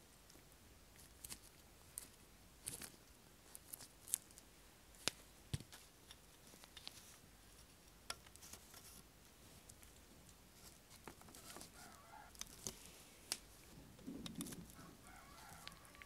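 Faint, scattered clicks and taps of small plastic model-car parts, a wheel on a thin metal axle and the chassis, being handled and fitted together by hand.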